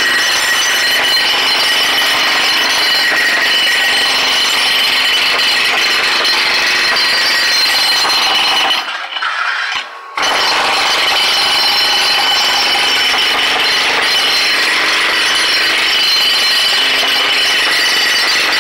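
Air-powered jackhammer running continuously as it breaks up sidewalk concrete, with a steady high whine over the hammering. It stops for about a second near the middle, then starts again.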